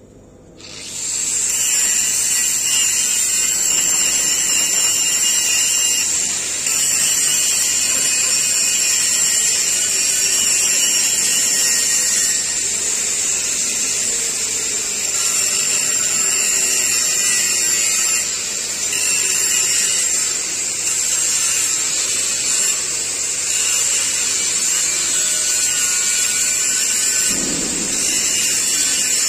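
Handheld power grinder spinning up about a second in, then running steadily with a high whine while grinding a steel pipe, dipping briefly now and then as the load on the disc changes.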